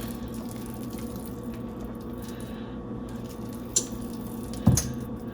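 Soft squishing of thick cake batter being worked in a baking pan over a steady low hum, with two short knocks about four and five seconds in, the second the louder.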